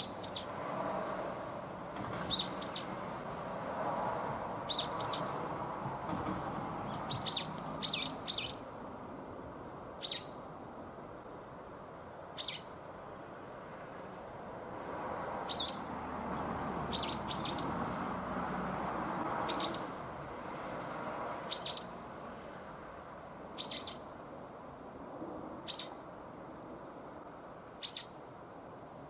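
Brown-eared bulbul, apparently a juvenile, giving short, sharp, rising calls at irregular intervals, some in quick pairs or threes, over a steady low background rumble.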